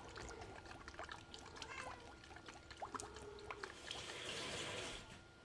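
Mesquite liquid smoke poured faintly into a steel mixing bowl of dry sausage ingredients: scattered soft ticks, then a short soft pour about four seconds in.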